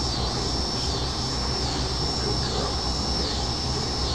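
Steady background hum with a constant high-pitched whine that dips in pitch briefly about once a second.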